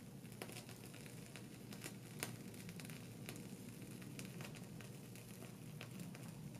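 Faint crinkling and crackling of a plastic piping bag being squeezed as it pipes cream, in scattered small clicks with a sharper crackle about two seconds in, over a low steady hum.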